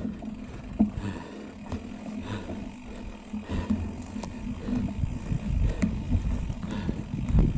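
Mountain bike rolling over bumpy grass, with wind rumbling on the handlebar camera's microphone and scattered clicks and rattles from the bike. The rumble grows louder near the end.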